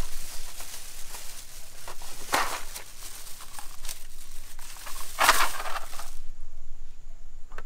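Thin plastic shopping bag crinkling and rustling as a hand rummages in it, with two louder crackles about two and five seconds in; the rustling stops about six seconds in.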